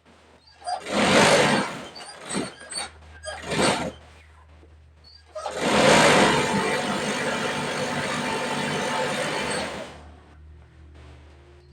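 Industrial feed-off-the-arm chain-stitch sewing machine running in three short bursts, then one longer steady run of about four and a half seconds as it sews a seam.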